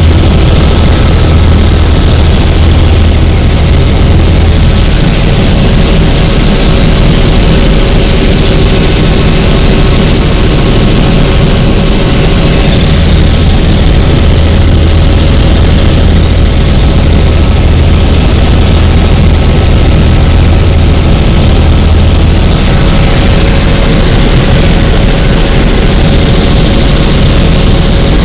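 Helicopter in flight, its turbine engine and rotor running steadily: a loud, even drone with a low hum and a high whine.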